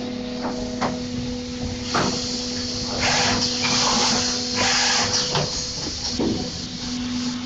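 Production-line machinery for thin-wall IML yogurt containers running with a steady hum, broken by several bursts of hiss in the middle and scattered sharp clicks.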